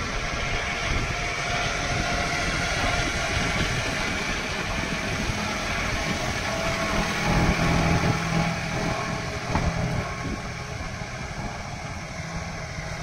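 John Deere 5210 tractor's three-cylinder diesel engine running steadily, getting louder about seven to eight seconds in as it comes closest.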